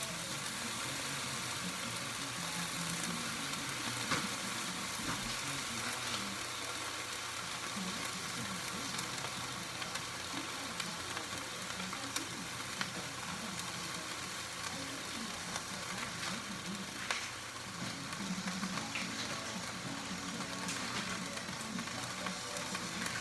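Bacon frying: a steady sizzle with scattered small crackles and pops.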